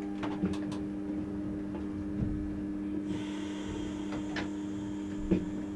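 Electric railcar standing still, its onboard equipment giving a steady electrical hum, with a few light clicks and knocks. About three seconds in, a steady high hiss joins the hum.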